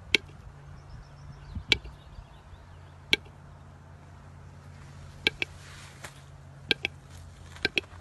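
Sharp, short taps or clicks, about nine of them at irregular intervals and some in quick pairs, over a steady low hum.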